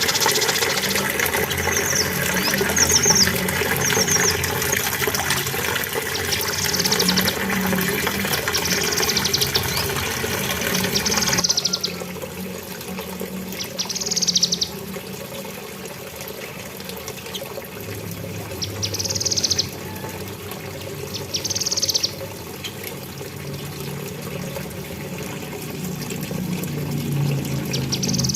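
Cucak kinoi leafbird giving short high call phrases, one every two to three seconds. For the first eleven seconds they sit over a steady rushing, water-like noise that cuts off suddenly.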